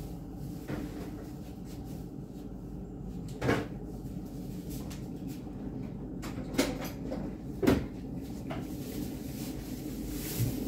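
Kitchen clatter while making coffee: about half a dozen separate knocks and clunks of cupboard doors and cups being handled, the loudest about three and a half and nearly eight seconds in, over a steady low hum.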